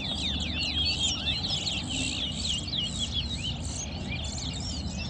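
Caged towa-towa seed finches singing: a continuous stream of quick, high whistled notes sweeping up and down in pitch, one phrase after another, over a steady low background noise.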